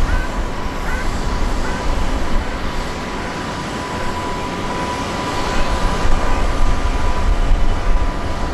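Jet engines of an Airbus A340-300, its four CFM56 turbofans, running as the airliner rolls along on the ground: a steady rushing noise with deep rumble and a thin whine, growing a little louder after about six seconds.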